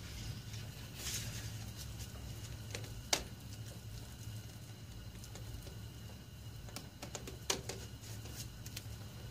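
Plastic Bondo spreader scraping and tapping as body filler is worked on a board, with sharp clicks about three seconds in and again about seven and a half seconds in, over a steady low hum.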